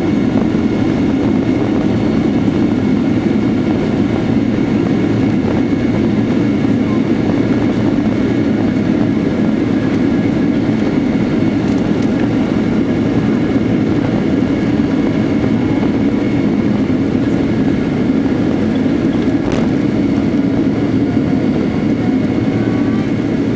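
Boeing 767-300ER jet engines and airflow heard inside the cabin: a loud, steady low rumble with a few faint steady whining tones, unchanging throughout.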